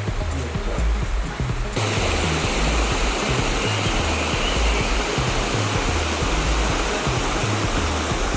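Rushing water of a small waterfall, starting abruptly about two seconds in, under background music with a steady low beat.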